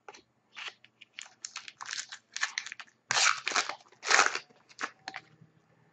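A trading card pack's wrapper crinkling and tearing as it is opened by hand, in a quick irregular run of rustles, loudest a little past the middle.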